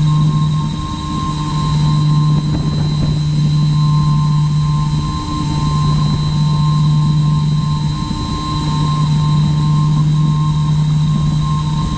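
Twin electric motors and propellers of a My Twin Dream FPV model plane in flight, heard from a camera on board: a steady drone with a high, even whine over a rumble. The drone dips briefly every few seconds.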